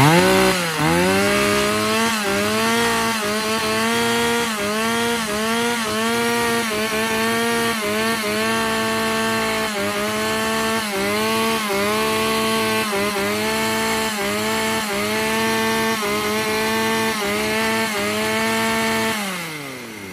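Shindaiwa 1048S 48cc two-stroke chainsaw starts up and runs at high revs. Its note dips briefly and recovers more than once a second. Near the end the revs fall away smoothly to idle, and the engine runs very smoothly.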